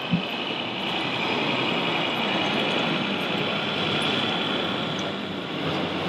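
Steady whine and hum of radio-controlled model trucks' electric drive motors and gearboxes, with a short low thump just after the start.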